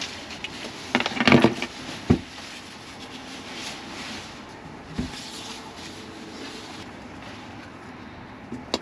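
Sleeping bag and bedding rustling as someone settles in, with a burst of rustling about a second in, a sharp knock just after two seconds and another at about five seconds, over a low steady hiss.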